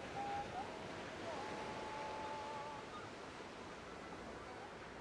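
Ocean surf washing in as a steady hiss. Over it, in the first half, a few long held tones slide from one pitch to the next.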